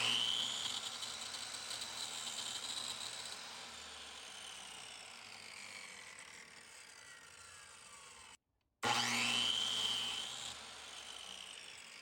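Electric power saw cross-cutting the worn ends off wooden oars: the motor whines up to speed and then winds down with falling pitch, twice.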